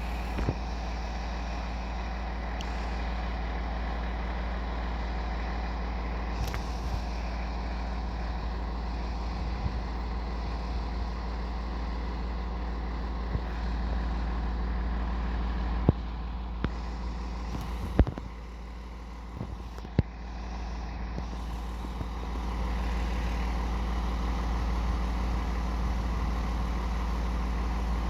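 Fire apparatus diesel engine idling steadily as a low rumble. Midway through come three sharp clicks about two seconds apart.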